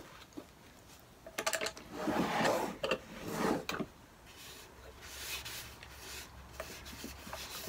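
Paper towel rubbing clear paste wax over a stained wooden chest: soft scuffing strokes, louder in the first half, with a few light clicks about a second and a half in.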